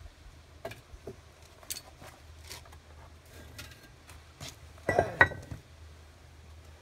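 Long metal tongs and fired ceramic clinking against the firebricks of a hot raku kiln: scattered light clinks, then a louder, ringing clatter about five seconds in.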